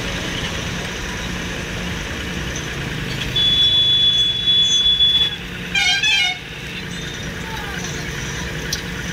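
Steady machinery engine rumble of a crane lift. About three seconds in, a high steady tone holds for about two seconds. Around six seconds in comes a short, wavering horn toot.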